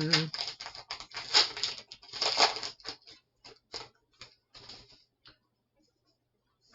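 Pokémon trading cards being handled and flicked through: papery rustling and sliding at first, then separate light clicks as cards are flipped one by one, petering out after about five seconds.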